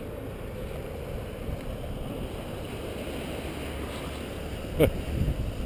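Steady wind buffeting the microphone over waves breaking on a rocky beach. Near the end there is a sharp knock with a quick falling scrape, then a smaller one.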